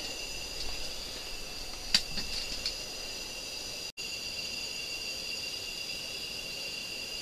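A steady high-pitched whine made of two tones held together, with one sharp click about two seconds in and a brief cut to silence about four seconds in.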